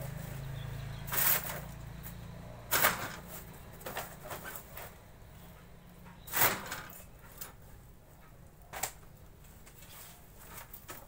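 Dry wood veneer being cut and handled on a hand-operated lever veneer cutter: four sharp cracks a few seconds apart, with lighter knocks and rustles of stiff sheets between them.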